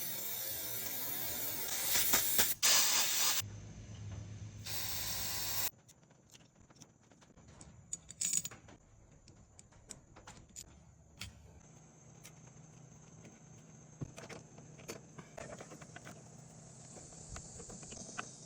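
A loud spray hissing for about five seconds during cleaning of a small-engine carburetor, then cutting off, followed by scattered light metallic clicks and ticks of small parts being handled.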